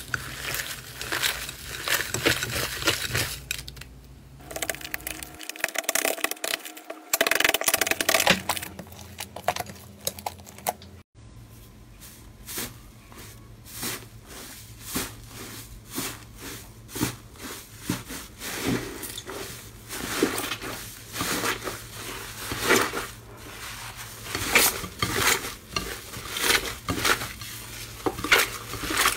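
Hands kneading, squeezing and pressing crumbly, textured slime, which gives a dense run of small crackling pops and squishes. The sound breaks off abruptly about eleven seconds in and picks up again on a new piece of slime.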